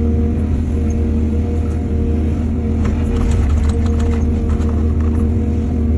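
Heavy diesel engine of earthmoving machinery running steadily at a constant pitch, with a cluster of light knocks and clanks around the middle.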